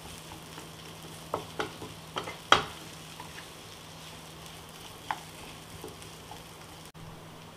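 Wooden spatula stirring and scraping spiced mashed-potato stuffing as it sautés in a nonstick pan, with a faint sizzle. A few sharp knocks of the spatula on the pan come through, the loudest about two and a half seconds in.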